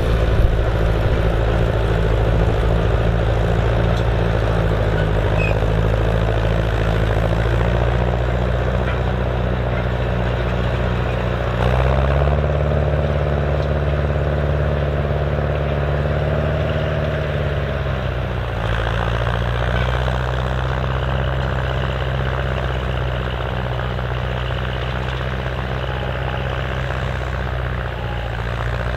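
Massey Ferguson 35 tractor engine running steadily while pulling a plough through soil. About twelve seconds in the engine speed rises, holds for about six seconds, then drops back.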